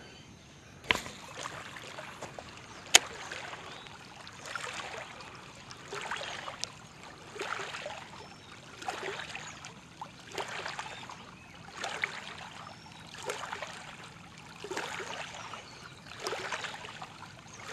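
Small waves lapping against a gravel lake shore, a soft wash coming in about every second and a half. A sharp click sounds about three seconds in, with a fainter one just before it.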